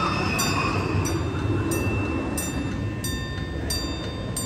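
Railroad crossing bell ringing in an even rhythm, about three strikes every two seconds, each strike leaving a ringing tone, over a steady low rumble; it sounds while the crossing gates are down for an approaching train.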